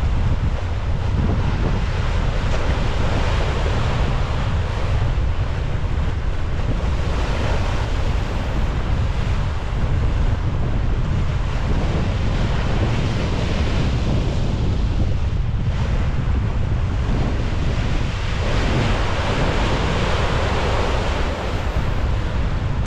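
Wind buffeting the microphone over the rushing bow wash of a sailing brigantine under way, the sea noise swelling and easing every few seconds.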